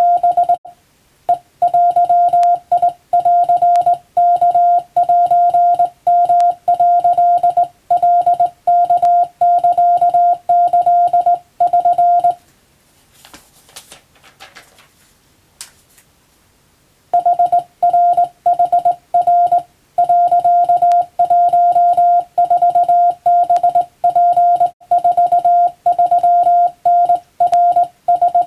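Hand-sent Japanese wabun Morse code from a telegraph key: one steady tone keyed on and off in dots and dashes, pausing for about five seconds midway before sending resumes.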